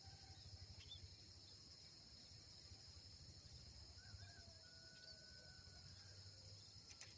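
Faint outdoor ambience: a steady high insect trill like crickets, with a few faint short bird whistles about four to five seconds in.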